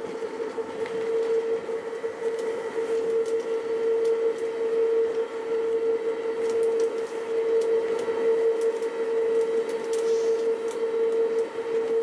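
Uijeongbu Light Rail train, a rubber-tyred VAL automated car, running at steady speed along the elevated guideway, heard from inside the car: a steady high-pitched whine over a running rumble, with scattered faint clicks.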